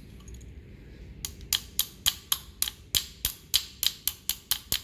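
A quick, regular run of sharp metallic clicks, about four a second, starting about a second in: a hand tool working on metal sprayer pump parts.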